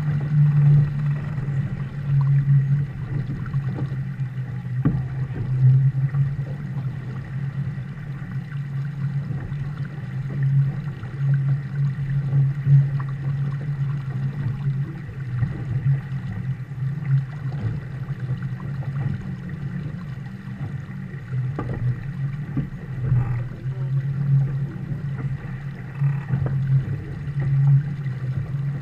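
Water rushing and splashing along the hull of a Viper sport boat under sail, mixed with wind on the deck-mounted camera. It surges and eases unevenly, with a few knocks of the chop against the hull.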